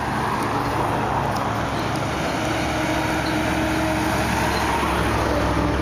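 Motor vehicle engine noise running steadily, a low engine hum under even road and traffic noise.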